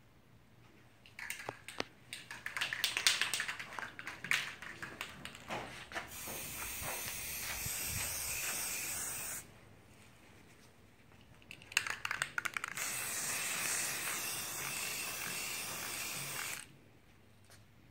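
Aerosol spray paint can: rattling clicks, then a steady hiss of paint spraying for about three seconds. After a short pause come a brief rattle and a second hiss of about four seconds.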